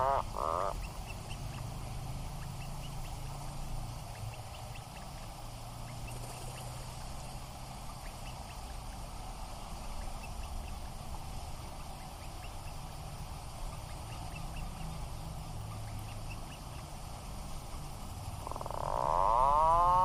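Atlantic puffin calls: a drawn-out pitched call rising and falling ends in the first second. A quieter low hum with faint distant ticks follows, and another rising-and-falling call starts near the end.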